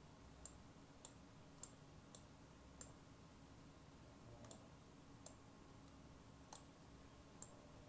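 Computer mouse clicking: about nine short, sharp clicks at irregular intervals, faint over near-silent room tone.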